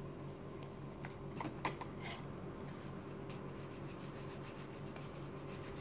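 Faint rubbing and a few soft clicks of a spoon and hands working sticky slime in a plastic toy food-processor bowl, over a faint steady hum.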